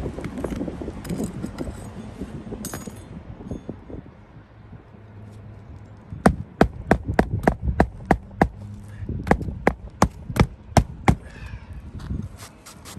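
A hammer striking sharply about a dozen times in quick succession, two to three blows a second, driving roofing nails into 3-tab asphalt shingles. Before it, a soft rustle of handling.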